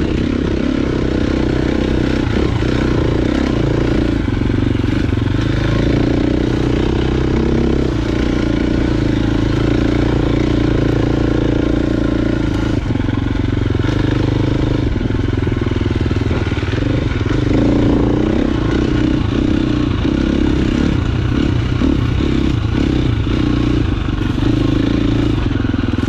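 KTM 350 XC-F dirt bike's single-cylinder four-stroke engine running continuously while riding single track, its note rising and falling with the throttle, with scattered short knocks and rattles.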